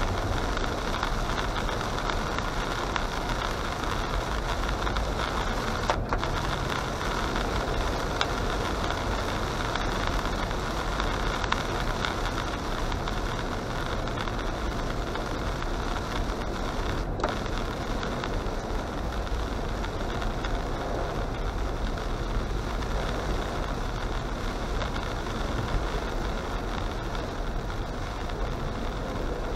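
Steady noise of a car driving on a rain-soaked road, heard from inside the cabin: tyres hissing on the wet surface, with the engine running underneath.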